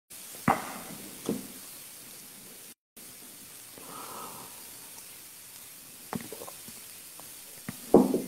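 Steady hiss from a phone's microphone, with a few sharp knocks and bumps of handling: about half a second in, just over a second in, around six seconds, and the loudest near the end. The sound cuts out briefly near three seconds.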